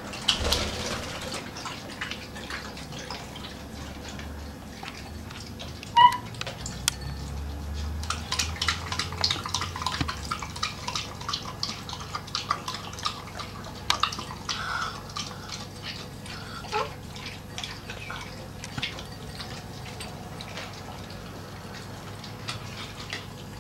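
A dog lapping milk from a drinking glass: a long run of quick, wet licks. One short squeak about six seconds in is the loudest sound.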